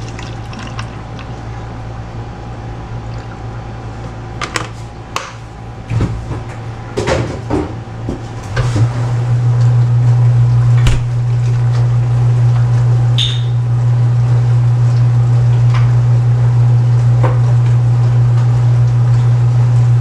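A few knocks and clacks, like a door and buttons being worked, then a microwave oven starts about nine seconds in and runs with a steady hum. A short high beep sounds a few seconds after it starts, warming the milk toward 105°F.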